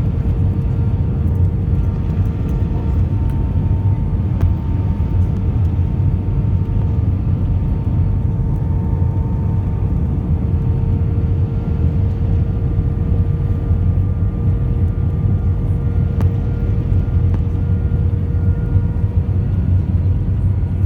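Airliner cabin noise: the jet engines and airflow make a steady low drone, with a few faint steady whining tones over it.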